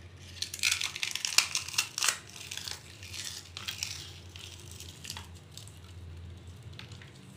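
Crisp fried papri (maida and sooji dough wafers) being broken up by hand, crackling and crunching. A quick run of crunches comes in the first couple of seconds, then scattered crackles that thin out a few seconds in.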